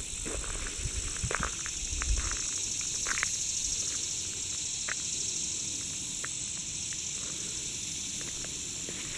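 Summer insects buzzing in a steady, high, even chorus, with a few soft knocks and low rumble in the first couple of seconds.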